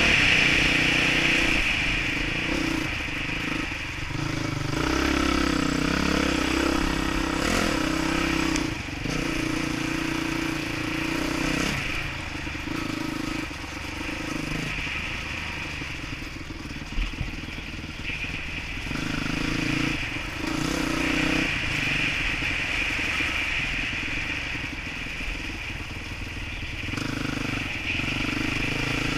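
Dirt bike engine running under a rider, picked up by a helmet-mounted camera, its revs rising and falling with the throttle over wind and trail noise. A single sharp knock comes a little past halfway.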